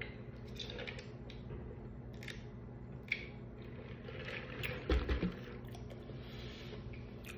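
Drink sipped from a large foam cup: several short wet slurps, then a low thump about five seconds in, as the cup is set down.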